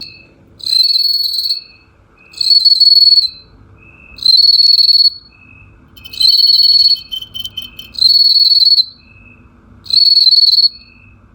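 Golden bell cricket (jinzhong) singing inside a calabash gourd: a loud, high, ringing trill about a second long, repeated six times roughly every two seconds. A fainter, lower chirp ticks steadily between the trills.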